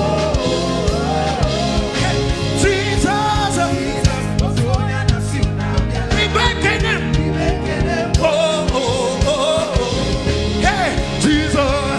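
Live praise and worship band music: a steady bass line and drums play under a singing voice whose melody slides up and down.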